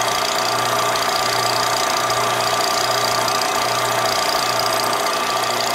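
Ross LDM-2 planetary mixer running, its agitators turning in the empty bowl: a steady electric-motor and variable-speed-drive hum with a higher whine over it.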